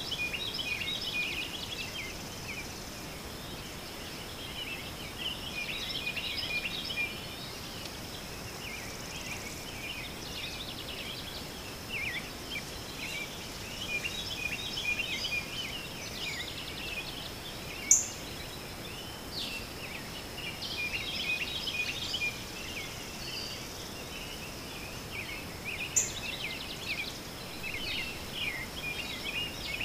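Birds chirping in short, busy bursts over a faint, steady high-pitched whine. Two sharp clicks sound about eight seconds apart in the second half.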